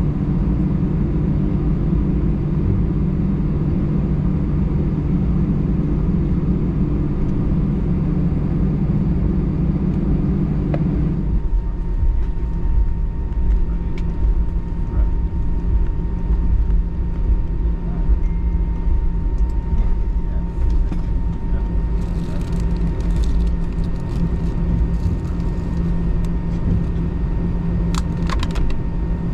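Airbus A320-200 cabin noise: a steady low drone of the engines and air system while the airliner taxis after landing. About eleven seconds in, the drone changes pitch and a thin steady whine sets in. A few light clicks come near the end.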